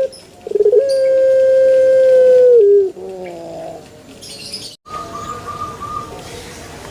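Puter pelung dove giving its long drawn-out coo: one held note of about two seconds that slides downward at the end. A fainter, higher wavering call follows about five seconds in.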